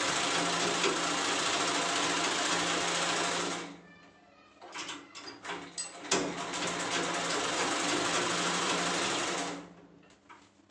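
Sewing machine stitching a seam along a zip on a fabric pocket. It runs steadily, stops about three and a half seconds in, and there are a few light clicks. It runs again from about six seconds and stops near the end.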